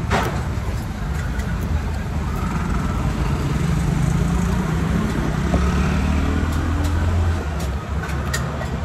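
Motor vehicle engines running in road traffic, a steady low hum, with a sharp click just at the start and a couple of light clicks near the end.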